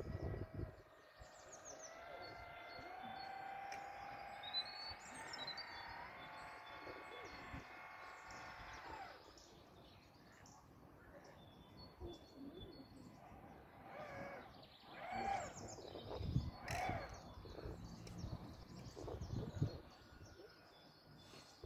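Faint outdoor ambience with birds chirping. A steady whine that rises slightly in pitch runs for about eight seconds and cuts off abruptly, followed by scattered short calls.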